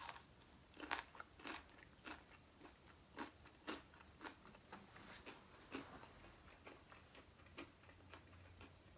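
Quiet, close-up chewing of a crispy fried chicken strip: the breading crunches in short, irregular crackles about once or twice a second.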